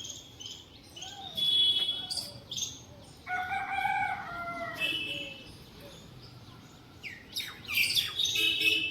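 A rooster crowing once, a single long call about three seconds in, with small birds chirping before and after it.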